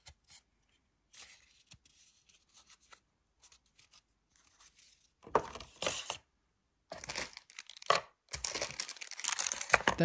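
Paper and plastic packaging rustling and crinkling as a paper manual and the keyboard's clear plastic dust cover are handled, in irregular bursts, faint at first and louder from about five seconds in.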